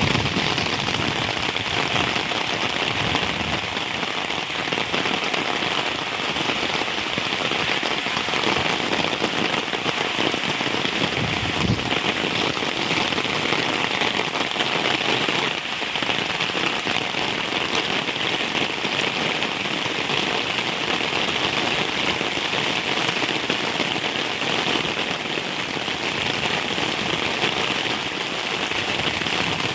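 Heavy rain falling steadily: a dense, even hiss of drops with no let-up.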